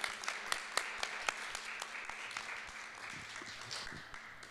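Audience applauding, a dense patter of hand claps that thins out and fades near the end.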